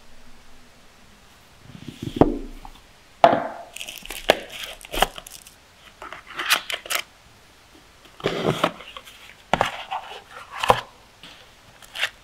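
Cardboard box and paper inserts being unpacked by hand: a string of short scrapes, taps and crinkles as cards and packaging are pulled out and a tab is torn.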